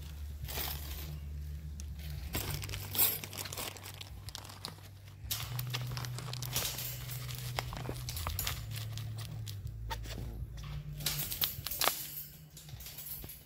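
Fencing pliers working a wire on a steel cattle panel at a T-post: irregular scraping and crinkling with many small metallic clicks, over a steady low hum.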